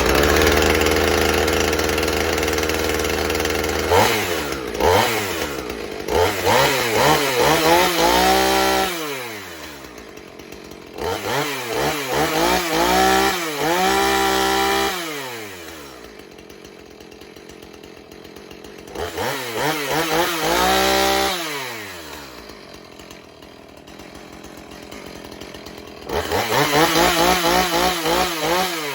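Husqvarna 450 chainsaw's 50 cc two-stroke engine, just started, running steadily for a few seconds, then revved four times in bursts of throttle. Its pitch climbs and falls back to idle between each burst.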